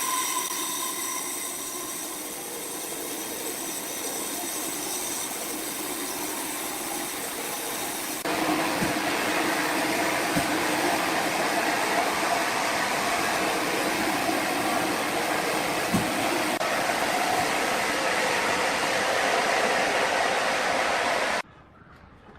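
Sawmill machinery running with a steady, noisy hum. It changes abruptly and gets louder about eight seconds in, then drops much quieter near the end.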